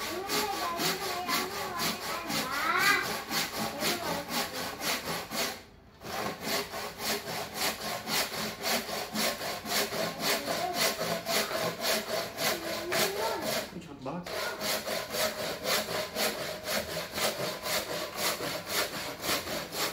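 D-Xplore Teflon-coated hand saw cutting through a wooden block, with quick, even back-and-forth strokes at about three a second. The sawing stops briefly twice, about six and fourteen seconds in.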